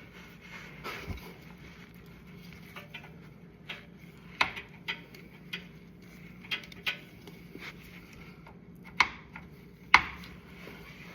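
Scattered light metallic clicks and clinks of motorcycle parts and hand tools being handled while a component is fitted back into place, with two sharper knocks near the end.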